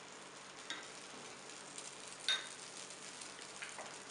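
Dosa batter and freshly poured oil sizzling on a hot tawa, with a few sharp ticks, the loudest about two seconds in.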